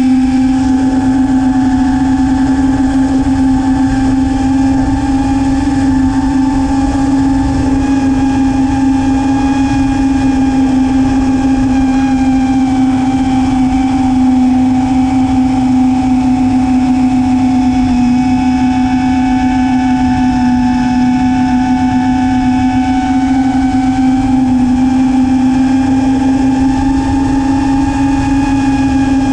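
Brushless motors and 5-inch propellers of an FPV racing quadcopter whining steadily in flight, heard from a GoPro mounted on the quad. The pitch stays nearly level, with slight dips, over a low buffeting wind rumble.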